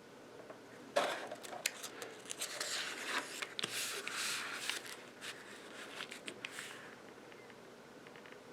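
Pages of a printed dash cam manual being handled and turned: crisp paper rustles and small clicks. They start abruptly about a second in and die away after about seven seconds.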